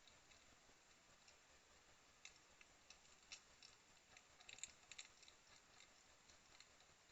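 Hedgehogs chewing as they feed: faint, irregular sharp clicks, thickest in a quick cluster a little past halfway, over a low steady hiss.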